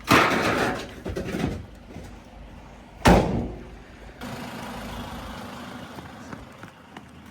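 Two heavy bangs about three seconds apart as scrap is handled at the vehicle, followed about four seconds in by a vehicle engine running steadily.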